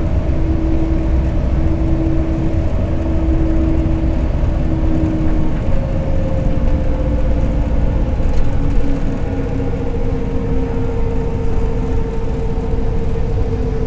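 LiAZ 5292 city bus heard from inside the passenger cabin while under way: a steady low engine and road rumble, with a whining tone that sinks slowly in pitch through the second half.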